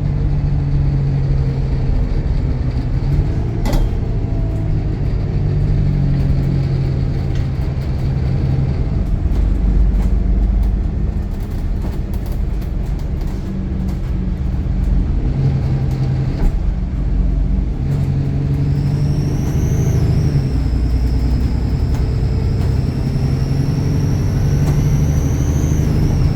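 Bus diesel engine working hard under acceleration with a steady low drone that swells and eases. About two-thirds of the way through, a high turbocharger whistle comes in, rises, dips, then climbs slowly and drops away near the end.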